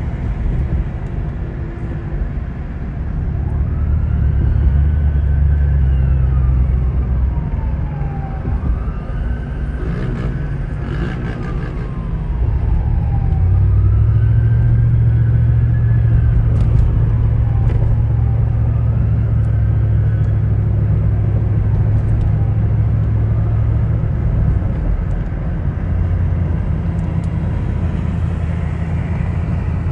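Police siren wailing, its pitch rising and falling slowly over and over, above a heavy steady low rumble of engines. A brief sharp clatter comes about ten seconds in.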